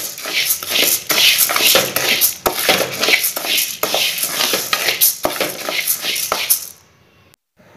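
A spatula scraping and stirring dry barley grains around a metal kadai during dry roasting, in repeated strokes with the grains rattling against the pan. The stirring stops about a second before the end.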